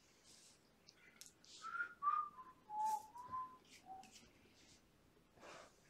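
A person whistling a short tune of about six clear notes, mostly stepping down in pitch, with soft rustling and hissy noises around it.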